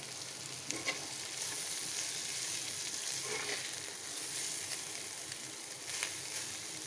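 Sautéed vegetables sizzling steadily in a hot steel pan as cooked basmati rice is stirred in with a perforated steel ladle, with a few light scrapes of the ladle against the pan.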